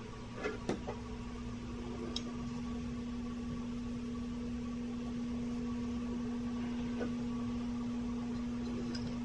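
A steady low hum at one pitch sets in under a second in and holds even. A few light clicks in the first couple of seconds, as folding knives are set against each other in the hand.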